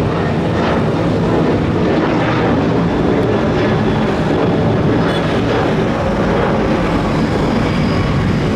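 An airliner's engines running loud and steady, a continuous rush of engine noise.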